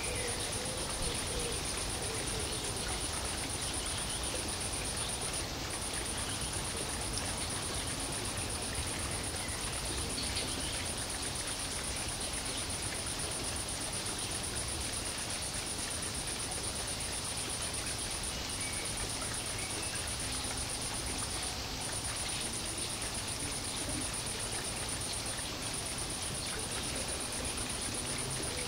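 Steady background hiss with a continuous high-pitched whine that breaks off briefly a few times.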